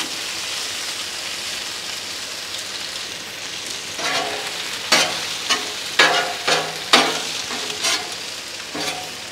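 Carne asada and chicken sizzling on a hot steel flat-top griddle. From about four seconds in, a metal spatula scrapes and knocks across the griddle top in a string of short, sharp strokes.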